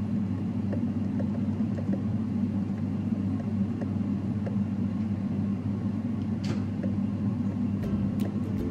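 Steady low background hum, like a running appliance or ventilation, with a few faint clicks as cookie dough is scooped from a steel bowl and rolled by hand, and one short sharp click about six and a half seconds in.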